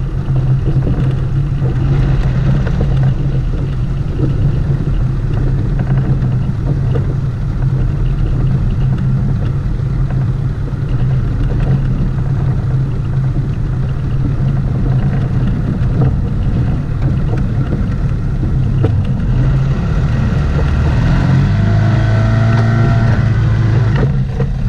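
Outboard motor on a small skiff running steadily at cruising speed, with the boat moving across open water. Near the end the engine note wavers and shifts as the boat turns.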